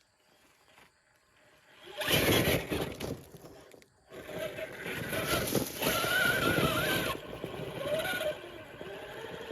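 Redcat Vertex 6 1/6-scale RC rock crawler's electric drivetrain whining under throttle, the pitch wavering up and down as it climbs. A loud burst of noise about two seconds in.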